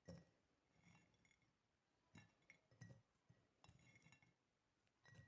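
Faint clinks of a glass bottle as pieces of dried fig are put into it: about six light knocks, roughly one a second, each with a short glassy ring.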